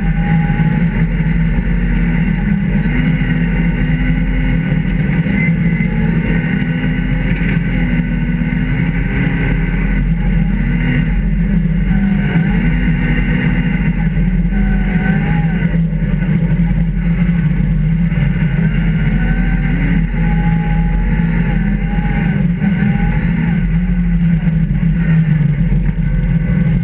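Rally car engine heard from inside the cabin, driven hard, its revs rising and falling again and again with throttle and gear changes.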